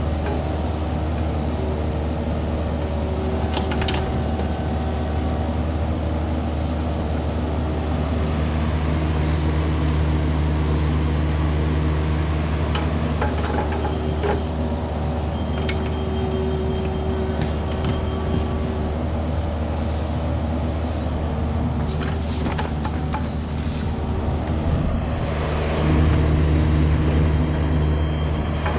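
Kubota KX71 mini excavator's diesel engine running steadily, with a few sharp knocks as it works. The engine gets louder about three seconds before the end.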